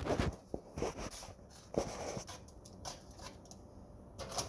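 Metal spatula scraping and clicking against a foil-lined broiler pan as hamburger patties are flipped: a few scattered light clicks and foil rustles.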